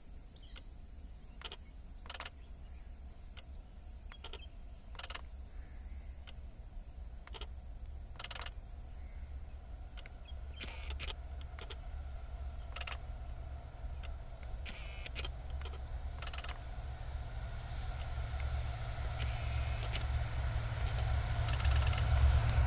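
Twin WDP4B diesel-electric locomotives hauling an express approaching from afar: a low rumble that grows steadily louder, with the engines' hum coming in over the second half. Short bird chirps, a steady high whine and scattered faint clicks sit over it.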